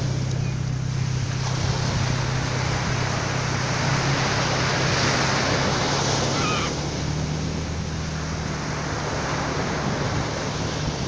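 Ocean surf breaking and washing up a beach: a continuous rushing hiss that swells in the middle and eases off about two-thirds of the way through, over a steady low hum.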